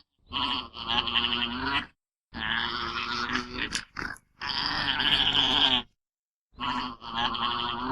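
Alpaca calling: a run of about four throaty, pitched calls, each lasting a second or so, broken by short gaps of complete silence.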